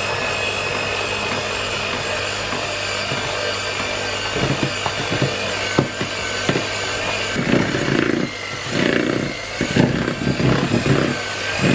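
Electric hand mixer running steadily, its beaters working flour and cocoa powder into creamed butter and sugar. From about four seconds in, the beaters knock and churn through the thickening cookie dough in uneven thumps that grow louder near the end, the motor labouring under the stiff dough.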